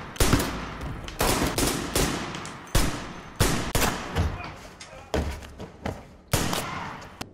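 Gunshots from a film gunfight, about a dozen sharp shots fired at irregular intervals, each trailing off in a ringing echo.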